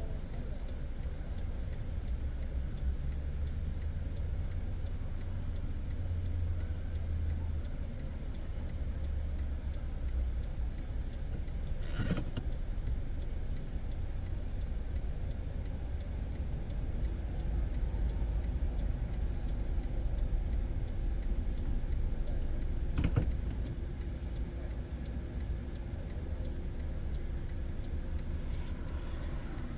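Car engine running with a low rumble, heard from inside the car, at slow speed or waiting. There are two sharp clicks, one about twelve seconds in and one about eleven seconds later.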